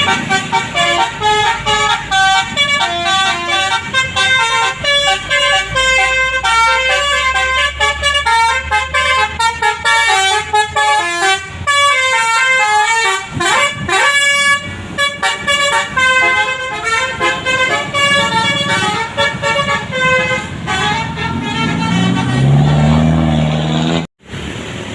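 Bus telolet musical air horn (a multi-trumpet basuri horn) playing a fast tune of short, stepping notes, with a rising glide about halfway through.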